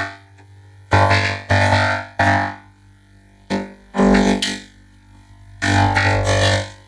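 A Goofy and Mickey cartoon sound effect run through heavy electronic audio effects, so it sounds synthesized. It comes as short repeated bursts about half a second apart over a steady low hum.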